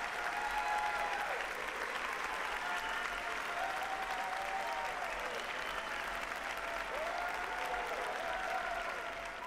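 Audience applauding, with voices calling out over the clapping; it eases off near the end.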